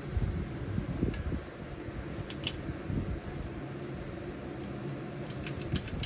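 Harbor Breeze Breezeway ceiling fan running with a steady low hum, with light metallic ticks about a second in, again around two seconds, and a quick run of them near the end.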